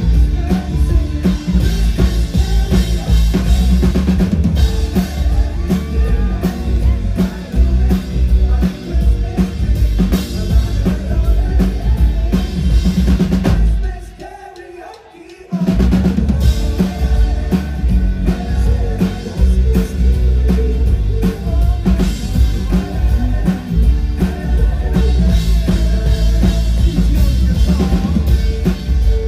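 Live band playing with the drum kit prominent, kick drum and snare driving the beat. About halfway through, the music cuts out almost completely for a second and a half, then the full band comes back in at once.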